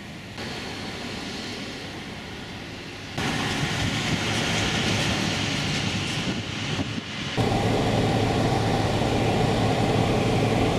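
Steady outdoor traffic noise with no distinct events. About seven seconds in, it cuts to the steady drone of road and engine noise heard from inside a moving car, the loudest part.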